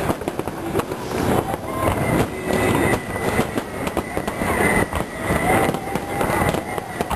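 Aerial fireworks barrage: shell bursts banging and crackling in quick, overlapping succession over a continuous rumble. A high, steady whistle is heard for a few seconds in the middle.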